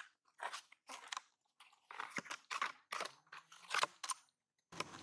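Baby macaque chewing on food held in its hands: a string of short crunchy bursts, about eight of them with brief pauses between. Near the end it gives way to a steady hiss.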